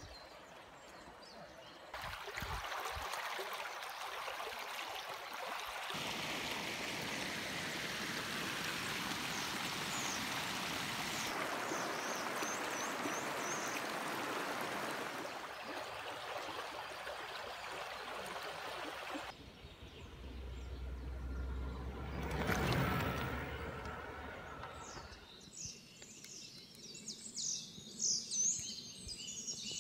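Vydrica brook rushing steadily over a small weir, heard through several cuts. Later something swells past with a low hum and fades, and then small birds chirp repeatedly near the end.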